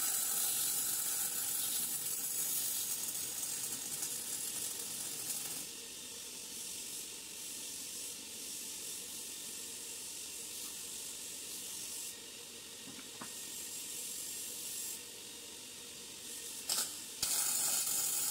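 MIG welding arc on steel, a steady high-pitched hiss. It runs loud for the first five and a half seconds, drops to a quieter hiss while the welder pauses, and starts up loud again near the end.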